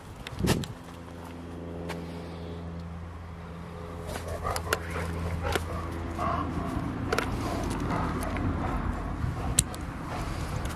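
A steady low engine hum holding one pitch, slowly growing a little louder, with a few sharp clicks over it.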